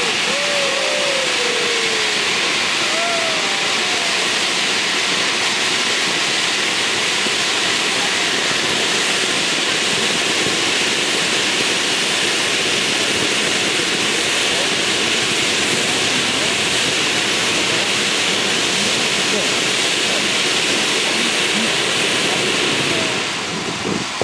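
Fireworks ground fountains spraying sparks: a loud, steady hiss that eases off near the end as the side fountains burn out.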